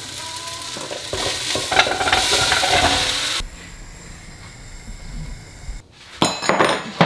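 Cubes of butternut squash tipped from a steel bowl into a hot pot, clattering against the metal and sizzling for about three seconds. Then a quieter steady hiss, and a few knocks near the end.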